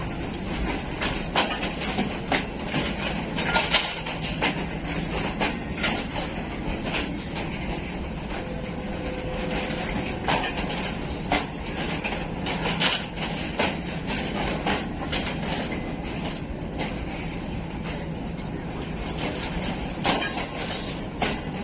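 Sir Syed Express passenger train rolling along the track, its wheels clicking irregularly over the rail joints over a steady rumble.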